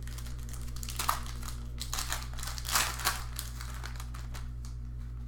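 Foil wrapper of a Panini Revolution basketball card pack being torn open and crinkled, crackling loudest between about one and three seconds in, over a steady low hum.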